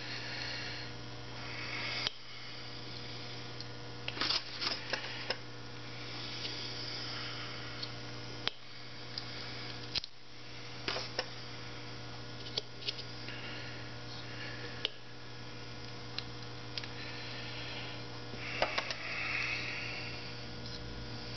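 Small steel bolts being handled and threaded by hand into a motorcycle carburetor's top cover, giving scattered light metallic clicks and brief scrapes, over a steady electrical hum.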